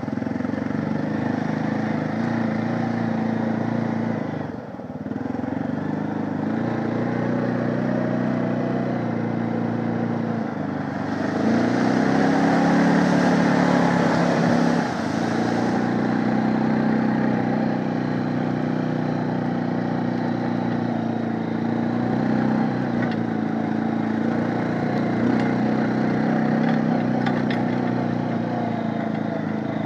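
2009 Honda 500 ATV's single-cylinder engine running under throttle, its revs rising and falling, easing off briefly about five seconds in. About eleven seconds in the revs climb and it gets louder as the quad ploughs through muddy water, with a hiss of splashing for about five seconds.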